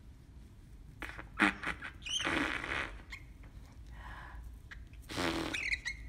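A person blowing raspberries, buzzing lips pressed against a cockatiel's feathers, in several short bursts.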